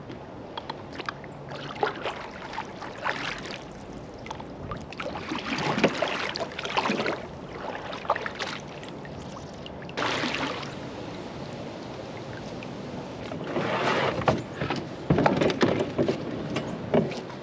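Kayak paddling on a creek: several rushing, splashing swells of paddle strokes through the water, with scattered light knocks.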